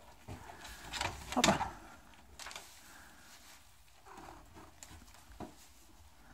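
A calf sniffing and snuffling with its nose right up against a cat, with one loud breathy snort about a second and a half in and softer sniffs and shuffles later.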